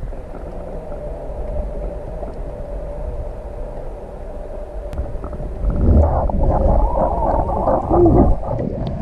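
Underwater noise heard through a submerged camera's waterproof housing on a magnet-fishing rope: a muffled low rumble, turning louder and churning about six seconds in as the camera is hauled up toward the surface.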